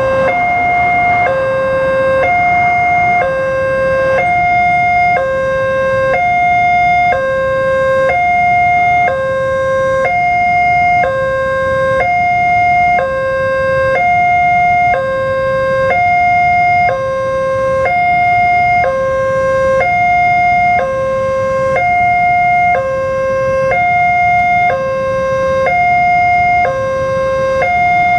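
Railway level-crossing alarm sounding a steady two-tone warning, a higher and a lower tone taking turns about a second each, signalling that a train is approaching and the crossing is closed. A low traffic rumble runs underneath.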